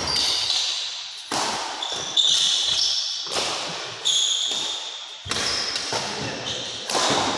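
Badminton rally in a large indoor hall: about seven sharp racket strikes on the shuttlecock, roughly one a second, each ringing on in the hall, with shoes squeaking on the court floor between them.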